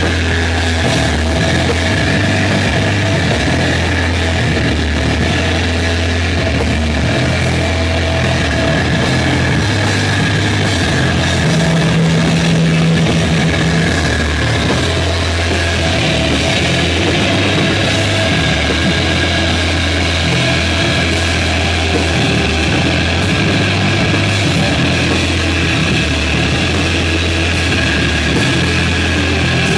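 Live rock band playing loud: electric guitar and drum kit with steady cymbal strikes over sustained low notes that change every second or so, played and recorded close in a small room.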